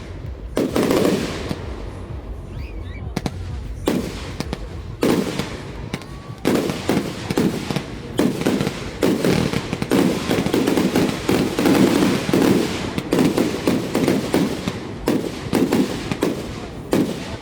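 Fireworks display: aerial shells going off with repeated sharp bangs, spaced out at first, then coming several a second from about six seconds in.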